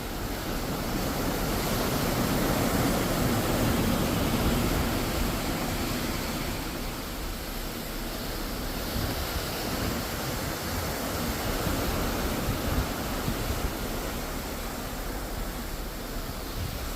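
Ocean waves washing in a steady rush, with wind on the microphone. The rush swells about two to five seconds in, then eases back.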